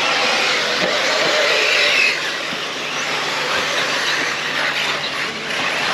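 Brushless electric radio-controlled cars racing on a dirt off-road track: a busy mix of high motor and gear whine and tyre noise, louder for the first two seconds as a car runs close, then a little quieter.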